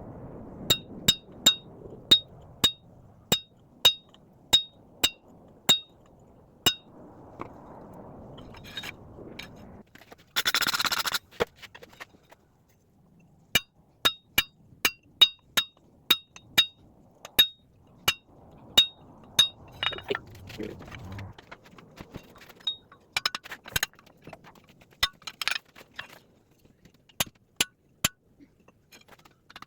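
Hand hammer blows on a hot 3/4-inch square steel bar on an anvil, each strike ringing at one high pitch, in two runs of about two blows a second, then scattered blows later on. A brief hiss about ten seconds in.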